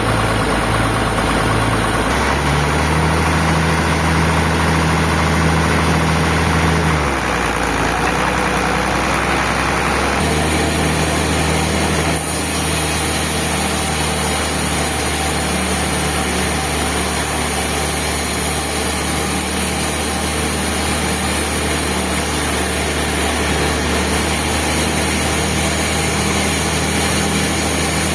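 Engine of sawmill machinery running steadily, its tone shifting abruptly a few times.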